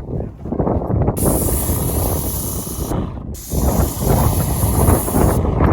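Wagner Control Pro 130 airless paint sprayer spraying wood stain in two trigger pulls: a high hiss starts sharply about a second in, breaks off briefly around three seconds, then runs again until just before the end. Heavy wind rumble on the microphone throughout.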